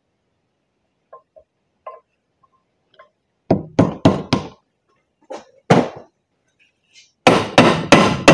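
Hammer blows on the new U-joint and axle yoke clamped in a vise, metal on metal. A few faint clicks come first, then four quick sharp strikes, a single strike, and another fast run of strikes near the end, each ringing briefly.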